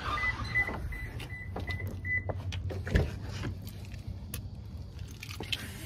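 A quick run of about seven short, high electronic beeps at one steady pitch over the first two seconds, followed by scattered clicks and a single knock about three seconds in. Under it all is a low rumble of wind and handling on a phone microphone.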